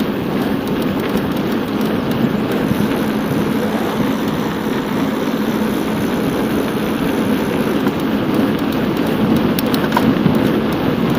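Steady wind rush on the microphone of a camera carried on a moving bicycle, a constant low rumbling hiss with no breaks.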